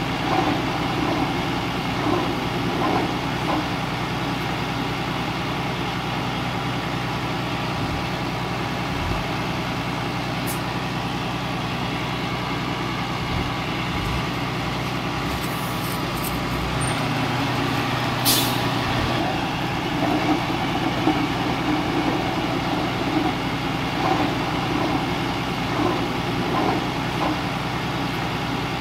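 Heavy-equipment diesel engine running steadily, with a few scattered knocks and a short hiss about two-thirds of the way through.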